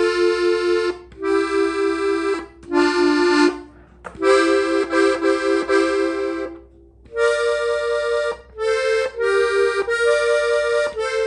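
Hohner diatonic button accordion tuned in F, playing a melody in two-note harmony. It comes in short phrases with repeated notes, separated by brief pauses.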